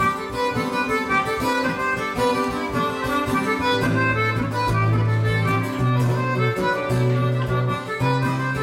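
Concertina and acoustic guitar playing a slow folk tune without singing; the concertina holds long sustained chords, with low bass notes coming in about four seconds in.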